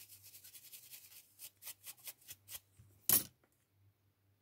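Stiff pure-bristle brush scrubbing small parts: a quick run of short scratchy strokes, about ten a second, then slower separate strokes, with one louder, sharper sound about three seconds in.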